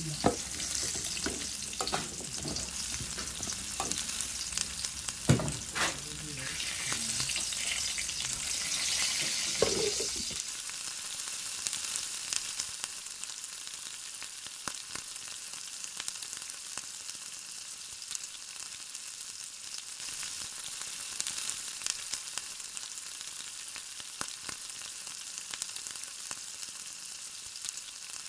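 Food sizzling in a pan while a spatula stirs chunks of squash and shrimp, scraping and knocking against the pan a few times. About ten seconds in the stirring stops and a quieter, steady sizzle with faint pops goes on with the pan covered by its glass lid.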